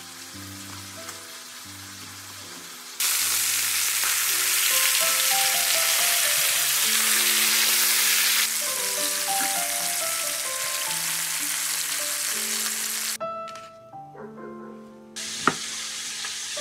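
Chicken breasts frying in hot oil in a frying pan, a loud steady sizzle that starts abruptly about three seconds in and dies away near the end. Background music plays throughout.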